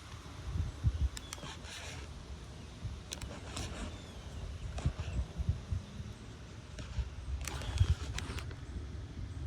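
Strong wind buffeting the microphone in uneven gusts, with a few short sharp higher sounds on top, about a second in, mid-way and near the end.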